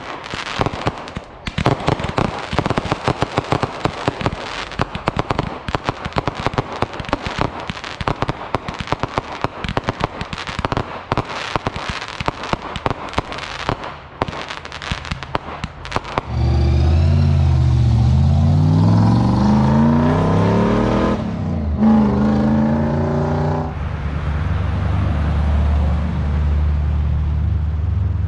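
Fireworks crackling with dense, rapid pops. A little over halfway through, this cuts to a car engine pulling away: its pitch rises, drops once at a gear change, rises again, then settles into a deep steady rumble.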